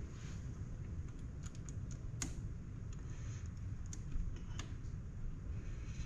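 Light, irregular clicks and taps of a hand tool working on a Halo locker's billet front differential case as a part is fitted back on, about a dozen in all, the sharpest a little over two seconds in. A steady low hum runs underneath.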